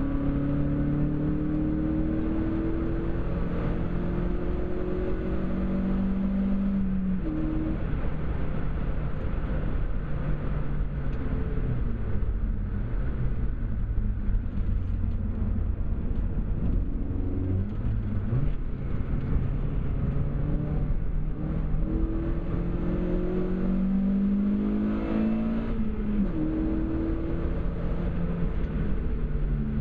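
Seat Cordoba Cupra's 2.0 16V four-cylinder engine (ABF) heard from inside the cabin at track pace. It revs up under acceleration and the pitch falls back at gear changes and when lifting for corners, over steady road and wind noise.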